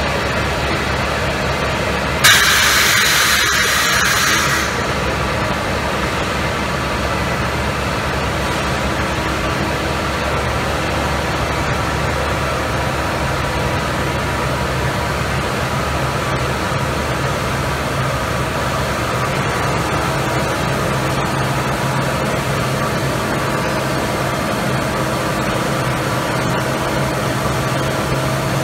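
Steady drone of corrugating-plant machinery with a constant low hum. About two seconds in, a sudden loud hiss starts and lasts about two seconds.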